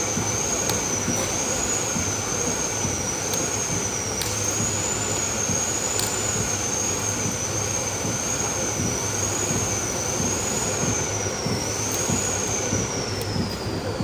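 A reinforced concrete pipe cage welding machine running: steady industrial noise with a low hum, a high whine that wavers up and down about once a second and sinks near the end, and a few faint clicks.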